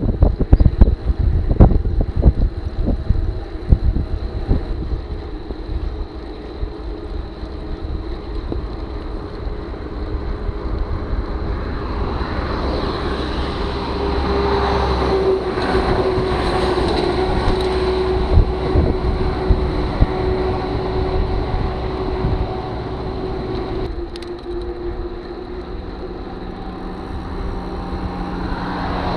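Wind buffeting a bicycle-mounted action camera's microphone at road speed, over steady road noise. Motor traffic passes on the highway, with one vehicle's engine drone swelling and fading around the middle.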